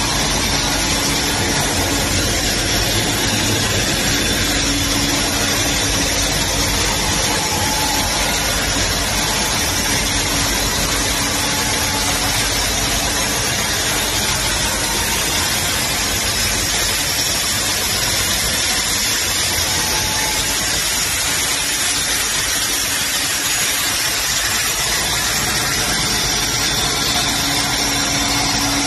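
Wire flattening rolling line running: a steady, loud machine noise with a faint low hum through it, unchanging throughout.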